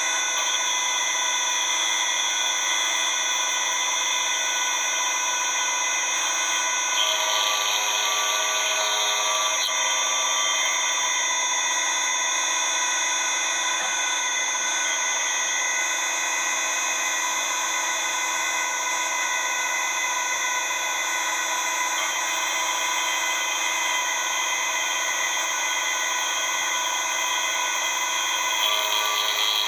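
CK28 slant-bed CNC lathe running: a steady machine whine with several held tones. A brighter, harsher sound lasting about two seconds comes in about seven seconds in, and again near the end.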